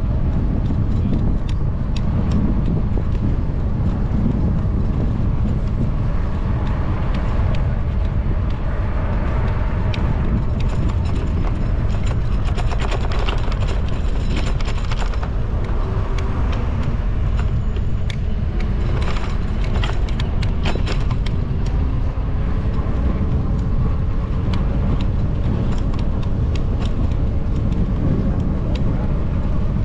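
Steady low rumble of a bicycle ride on a city street, picked up by a camera riding along on the bike: tyre and wind noise with scattered light clicks and rattles, and car traffic around.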